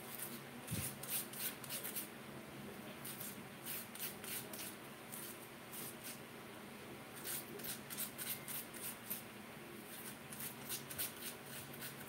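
Raw potato being grated by hand: quick scraping strokes that come in bunches of several, with short pauses between them.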